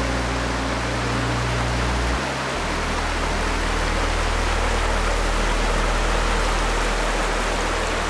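Shallow mountain stream rushing over rocks, a steady hiss of water. Under it runs low, sustained background music that changes chord a little over two seconds in.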